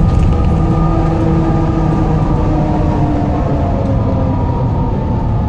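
Volvo Ailsa double-decker bus's diesel engine working hard under way, heard from inside the bus, its pitch slowly falling in the second half.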